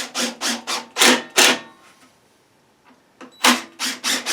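Short, sharp clattering bursts of tool work on the wooden trim, about four a second, in two runs with a pause of about two seconds between them.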